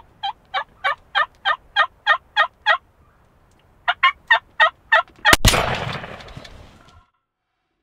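Wild turkey yelping, about ten evenly spaced notes, then a short pause and five more, followed by a single loud shotgun blast whose echo fades over about a second and a half.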